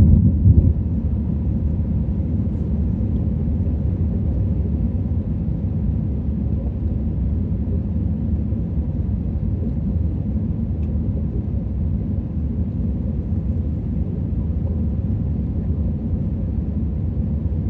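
Airliner cabin noise: the steady low drone of the aircraft's engines and airflow heard from inside the passenger cabin, with a faint steady hum above it.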